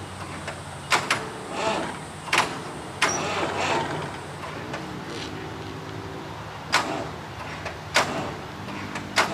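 Sharp metallic clanks and knocks at irregular intervals from hands-on work at the front of an old tractor crane's engine, over a steady low engine hum.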